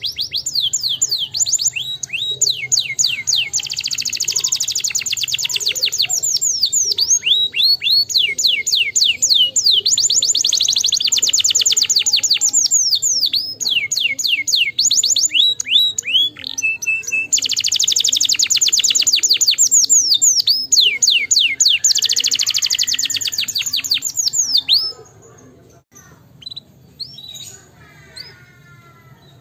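Domestic canary singing in long, rapid trills of fast-repeated high notes, each roll a string of quick sweeps, with short breaks between phrases. About 25 seconds in the song drops to softer, scattered notes.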